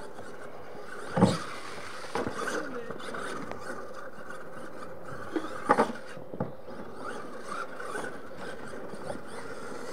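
Radio-controlled monster truck running across loose dirt, its motor humming steadily. Several sharp knocks and scrapes from the truck, the loudest about a second in and a cluster near six seconds in.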